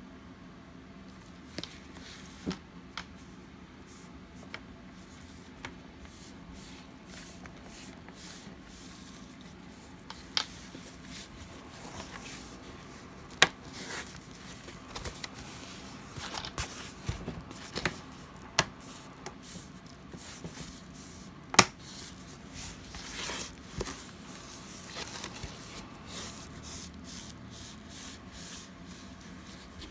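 Hands working on a laptop: scattered sharp clicks and taps of plastic parts over rubbing and rustling, with two louder clicks about 13 and 21 seconds in.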